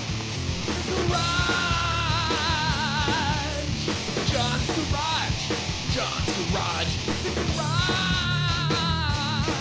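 Hard rock music with a steady driving beat; a long, wavering held note comes in about a second in and again near the end.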